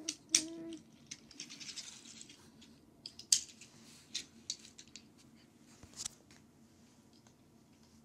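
Die-cast toy car handled on a marble ledge: sharp clicks as it is set down on the stone, the loudest a little after the start and about three seconds in, with light scraping and rattling of its small wheels rolling between.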